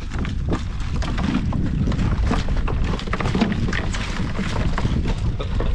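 Wind buffeting the microphone in a steady low rumble, with many irregular sharp clicks and clatters of handling through it.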